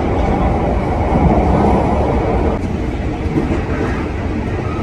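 Commuter train running, heard from inside the carriage: a steady, loud low rumble of the car on the rails.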